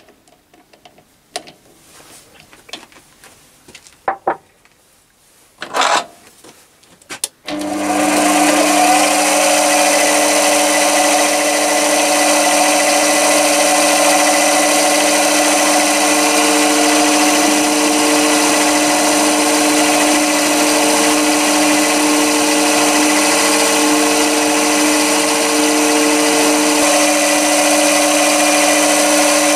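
Mini metal lathe: a few clicks and knocks as the three-jaw chuck is tightened with its key, then about seven seconds in the motor starts, spins up briefly, and runs steadily with a whine from the motor and gears.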